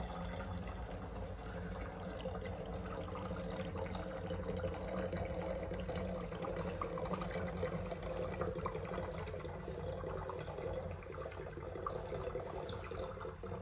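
Water swirling and splashing steadily as a whirlpool is spun up in a container, over a steady low hum.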